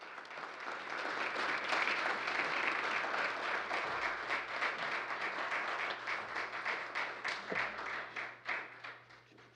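Audience applauding. It swells over the first couple of seconds, holds, then thins into scattered claps and dies away near the end.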